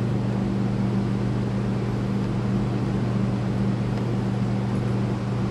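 Steady hum of electric shop fans running, with a couple of faint clicks from a screwdriver turning screws into the trimmer's plastic recoil housing.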